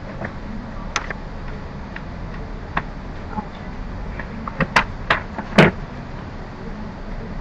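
A few sharp, scattered clicks and taps over a steady low rumble of background noise, with a cluster of louder clicks near the end.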